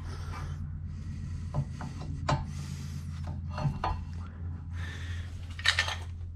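Metal brake parts clinking, knocking and scraping as a brake caliper assembly is slid over a new front rotor and worked into position, with a longer scraping rattle near the end. A steady low hum runs underneath.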